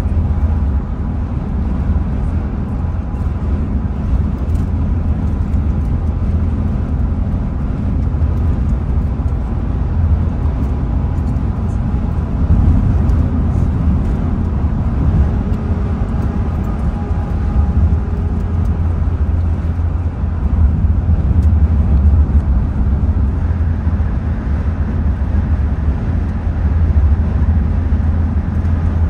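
Road noise inside a moving car at highway speed: a steady low rumble of tyres and engine.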